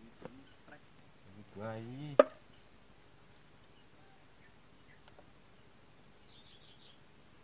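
A single sharp click a couple of seconds in, then faint high insect chirping, a short run of chirps near the end.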